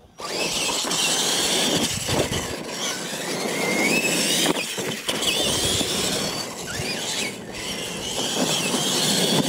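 Two electric R/C monster trucks launch and race on a dirt track, their motors and gears whining over the rush of tyres on dirt. The sound starts suddenly, and the whine rises in pitch as they accelerate.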